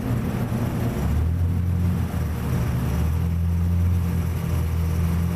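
A steady low rumble with a droning hum, which grows stronger about a second in.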